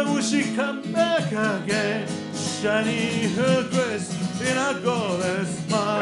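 Live song: an acoustic guitar strumming chords under a man's singing voice, the melody line bending and wavering.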